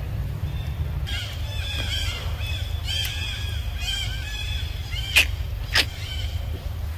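Animal calls: high, chirping cries repeated several times over a few seconds, then two sharp clicks about half a second apart. A steady low rumble runs underneath.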